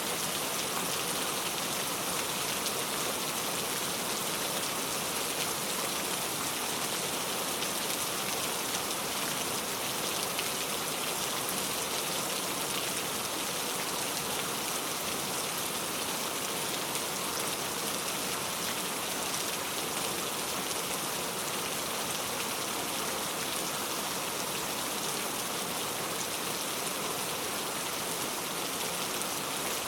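Heavy rain falling steadily on a road, a dense, even hiss with no thunder.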